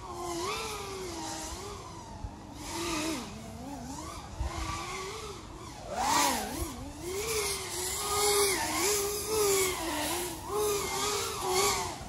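FPV racing drone's brushless motors whining through a flight, the pitch swooping up and down constantly with throttle, with sharp surges about halfway and again near the end. The throttle limit is set to 80%.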